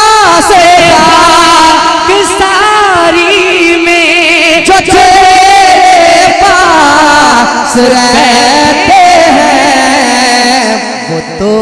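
Music of a devotional manqabat: a heavily ornamented, wavering melodic line with several parts sounding at once, fading down near the end.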